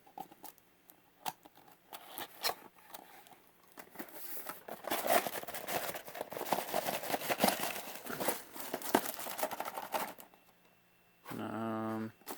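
Cardboard box being cut and opened with a box opener: a few sharp clicks and knocks, then about six seconds of scraping, tearing and rustling of cardboard and packaging that stops about ten seconds in.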